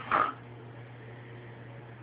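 A single short hiccup from a baby near the start, over a steady low hum and hiss.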